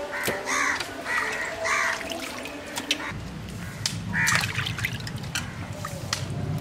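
Crows cawing repeatedly, a quick run of harsh caws in the first two seconds and more about four seconds in, over water splashing and dripping as cut fish pieces are washed by hand in a metal pot.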